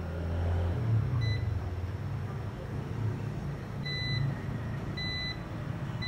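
A UNI-T digital multimeter gives four short electronic beeps as its probes are held on the laptop motherboard. One comes early and the last three come about a second apart, over a low steady hum.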